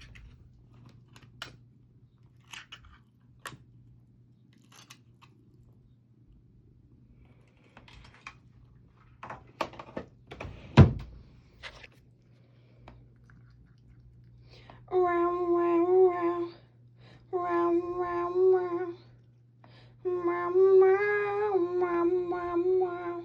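Scattered light knocks and clicks, with one loud thunk about eleven seconds in. Then a person's voice hums three long, slightly wavering notes in the last eight seconds.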